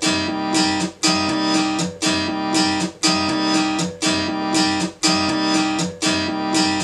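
Sampled guitar loop playing from Reason's Dr. Octo Rex loop player, restarting about once a second, with its fifth slice set to play reversed.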